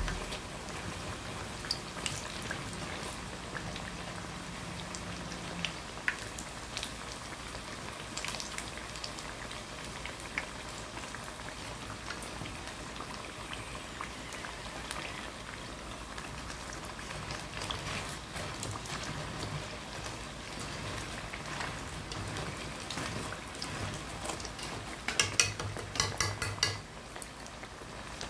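Battered sweet potato slices deep-frying in hot oil in a wok: a steady sizzle with scattered crackling pops. Near the end comes a quick run of sharp clicks.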